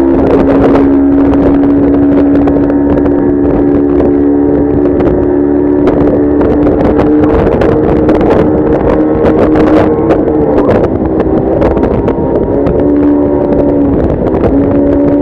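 Motorboat engine running at speed, its note holding steady and shifting in pitch a few times, with wind noise on the microphone and occasional short thumps.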